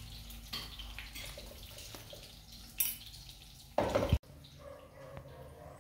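Faint kitchen handling noises with a few small clicks, a short sharp knock just before three seconds in and a louder clatter of under half a second about four seconds in that cuts off abruptly.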